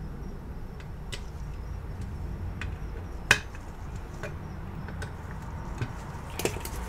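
A few small, sharp clicks and taps of a pointed metal tool against a cable modem's circuit board and heatsink, the loudest about three seconds in, over a steady low hum.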